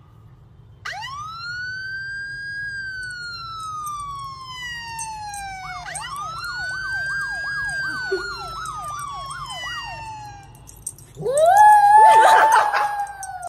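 A siren wails, rising and then slowly falling, and does so twice; the second wail has a fast warble over it, about two and a half wobbles a second. Near the end a small white fluffy dog howls along, louder than the siren.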